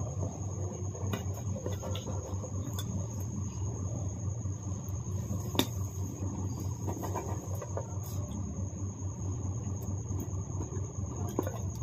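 A round steel cutter pressed through rolled dough on a steel plate, with a few light clicks and one sharper click about five and a half seconds in. Under it are a steady low hum and a thin, even high-pitched trill.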